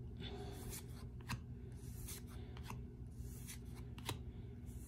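Baseball trading cards being flipped through by hand, each card slid off the front of the stack with a soft rub and a light click about once a second, over a low steady hum.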